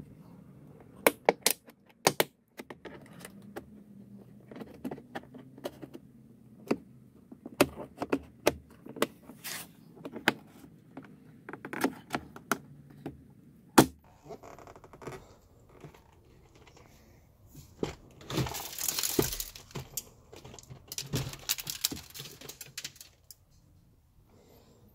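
Plastic trim clips of a 2017 Audi S3 8V rear door panel clicking and snapping as a plastic pry tool works the panel loose, a scattered run of sharp clicks and knocks. Later come two stretches of a few seconds each of rustling, scraping noise as the panel is handled.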